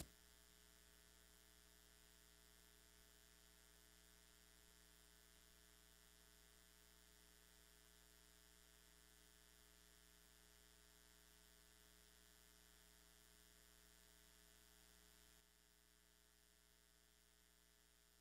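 Near silence with a faint, steady electrical mains hum, which drops slightly quieter about fifteen seconds in.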